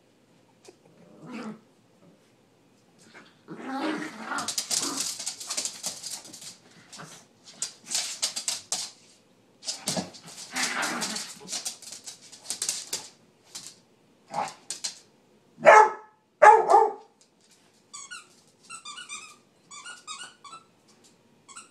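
Small dogs growling and barking as they tussle over a squeaky toy, with several loud sharp barks past the middle. Near the end comes a quick run of high rubber squeaks as the toy is chewed.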